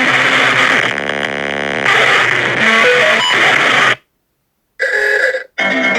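Loud, harsh, distorted meme sound effect, a noisy cacophony mixed with music, running for about four seconds before it cuts off suddenly. Two short loud bursts of music follow near the end.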